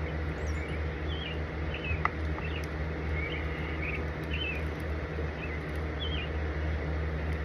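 Small birds chirping, short calls repeated every second or so, over a steady low hum. A single sharp click sounds about two seconds in.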